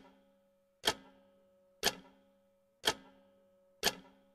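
Clock ticking at about one tick a second, five ticks in all. Each tick is a sharp click with a short ringing tone after it.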